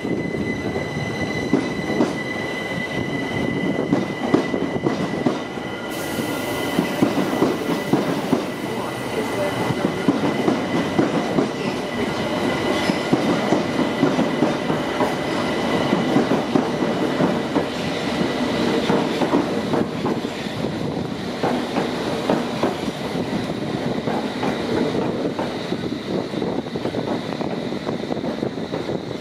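London Underground District line S Stock train rolling slowly past over the junction pointwork. Its wheels keep up a thin steady squeal over a rattling clatter of wheels on the rails, and the squeal fades about halfway through.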